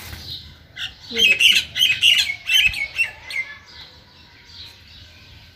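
Bird calls: a run of sharp squawks and chirps lasting about two seconds, starting about a second in.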